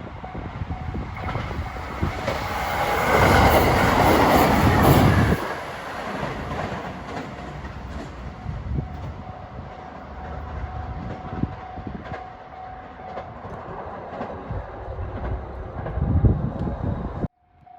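A 521 series electric multiple unit passes over a level crossing, its wheels clattering over the rail joints, loudest about three to five seconds in and then dying away. The crossing's warning bell keeps ringing with a steady tone, and the sound cuts off abruptly near the end.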